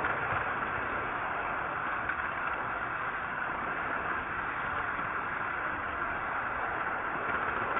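Model train rolling steadily along its track, picked up as an even running rumble and whir by a camera riding aboard the train.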